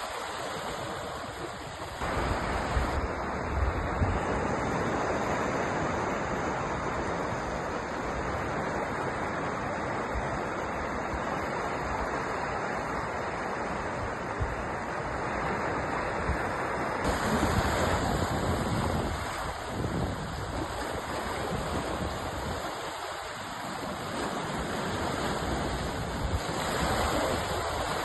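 Sea surf washing continuously, a steady rushing noise with gentle swells in level. Its character shifts abruptly about two seconds in and again past the middle.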